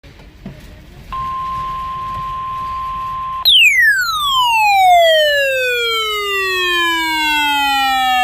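A steady electronic tone of about 1 kHz held for some two seconds, the kind of alarm tone that NOAA Weather Radio sends ahead of a warning, then a loud, harsh electronic siren sweep that falls steadily in pitch over about five seconds; a second falling sweep starts near the end.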